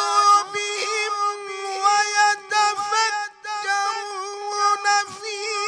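A man's solo voice chanting Quran recitation in tajweed style, drawing a vowel out into one long, high, ornamented melodic line with small wavering turns. There is a short break for breath about three seconds in.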